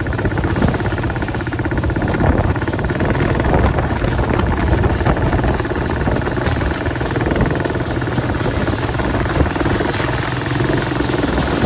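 Heavy farm machinery running steadily at working speed: a diesel engine with a continuous mechanical rattle and hum.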